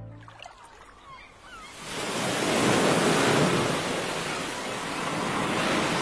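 Ocean surf: a steady wash of waves breaking on a beach, swelling in about two seconds in. A few faint bird chirps come just before it.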